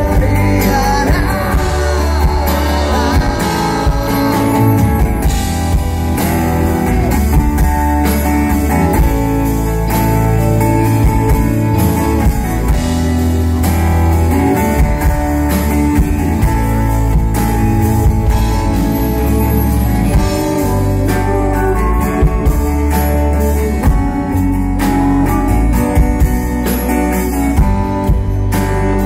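Live band music: guitar over a steady drum-kit beat, with a voice singing in places.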